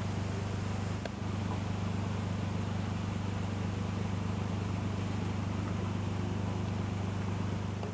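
A steady motor hum: an even low drone with a hiss over it, holding constant, then stopping just at the end.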